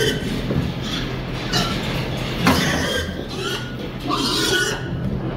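Pigs squealing and grunting in short outbursts, several times, as they are driven along with a sort board, over a steady low hum.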